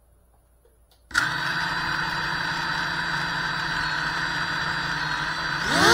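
FPV quadcopter's brushless motors starting up about a second in, then spinning at a steady idle with a high whine while the drone sits on the floor. Near the end the pitch begins to rise as the throttle comes up for take-off.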